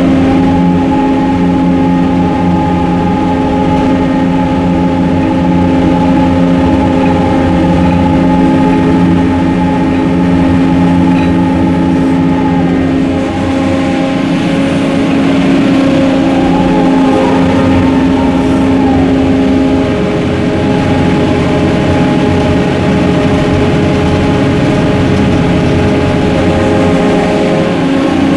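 Ship's deck crane machinery running as it hoists and slews a clamshell grab of coal: a loud, steady mechanical hum made of several tones. Some of the tones slide in pitch around the middle, as the crane changes motion, and the lowest drops out about two-thirds through.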